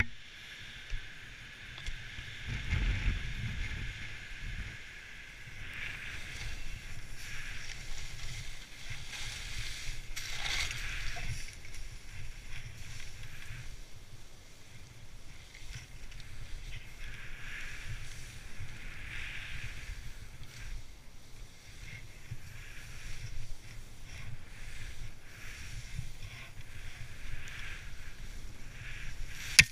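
Skis hissing through deep powder snow, the hiss swelling and fading over and over, with wind rumbling on the microphone. A sharp click near the end.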